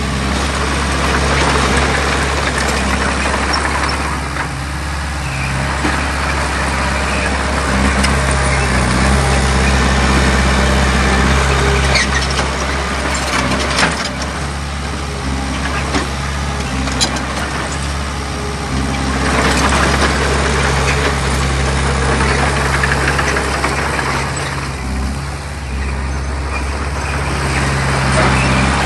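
Heavy diesel earthmoving machine running steadily, its working noise swelling and easing over several seconds at a time, with a few sharp clanks in the middle.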